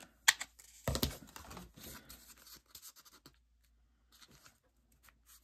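Scissors snipping through card: a crisp snip just after the start, then a dull knock about a second in, then card and paper rustling as they are handled. It dies away after about three seconds.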